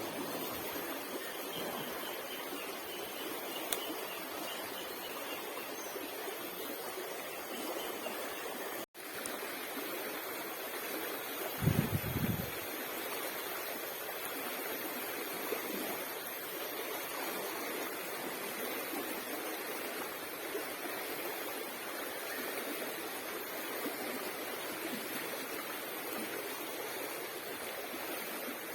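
Steady rushing of flowing water, with a brief low thump about twelve seconds in.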